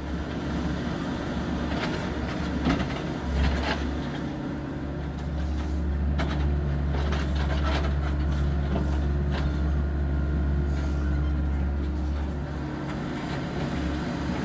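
Heavy diesel engine running steadily, with scattered knocks and clatter over it.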